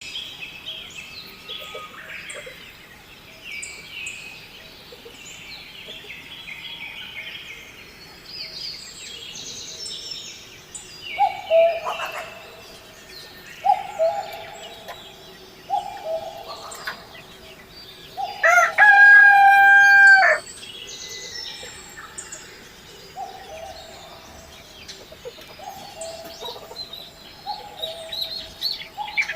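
Chickens calling, with one long, loud rooster crow about two-thirds of the way through, preceded by several shorter calls. Small birds chirp throughout.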